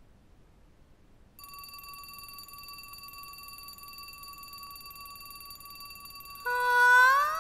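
Alarm clock ringing: a steady high electronic tone that starts about a second and a half in. Near the end it gives way to a louder swell of music that rises in pitch.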